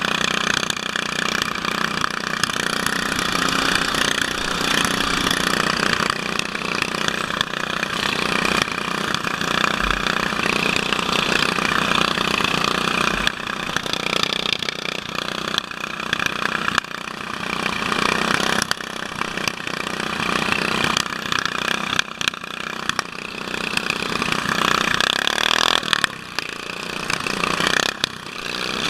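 Racing riding lawn mower engines running loud and rough, heard close up from the driver's helmet, with other mowers' engines alongside. The sound dips briefly near the end.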